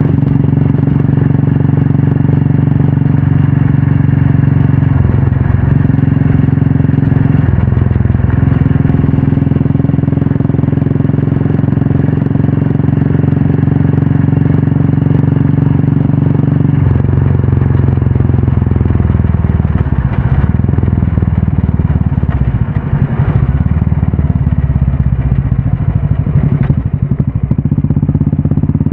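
Royal Enfield Classic 350's single-cylinder engine running through a Red Rooster aftermarket stainless-steel exhaust, the note holding steady with a couple of brief dips, then dropping in pitch about two-thirds of the way in and turning rougher and more uneven.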